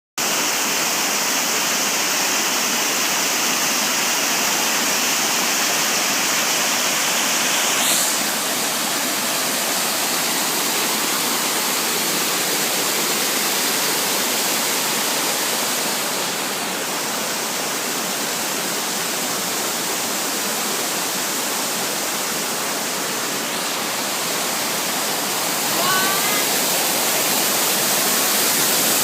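Sengataki waterfall, water falling and rushing in a steady, loud wash of noise. A few faint short rising chirps sound briefly near the end.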